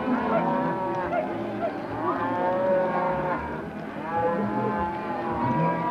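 A mob of cattle mooing, several long calls about a second each following and overlapping one another.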